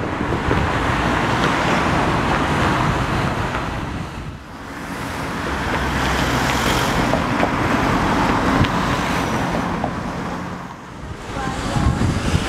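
Road traffic passing close by: cars driving past one after another, their tyre and engine noise swelling and easing, with brief lulls about four seconds in and again near eleven seconds.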